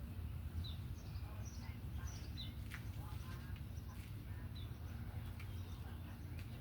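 Small birds chirping, short high calls that drop in pitch, repeated every half second or so, over a steady low hum, with a few faint clicks.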